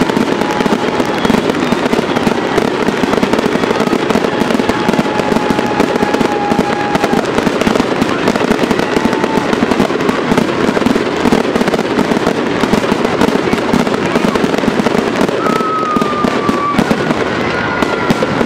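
Aerial fireworks display with many shells bursting in quick succession, a loud, dense, unbroken run of bangs, pops and crackle. Faint thin whistling tones come and go, one slightly falling near the end.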